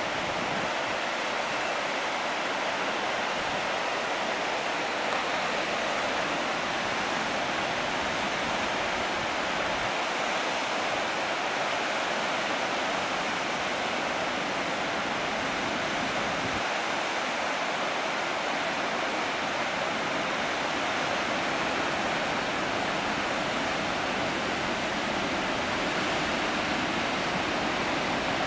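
Cascata delle Marmore waterfall running at full flow after its gates are opened, a steady, unbroken rush of falling water.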